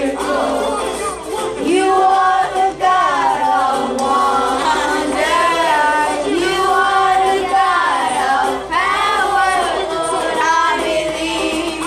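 A group of children and adults singing a song together, several voices at once.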